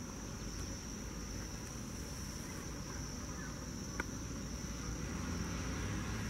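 Airbus A320 jet engines at taxi idle: a steady low rumble, with a steady high-pitched whine over it. One brief click about four seconds in.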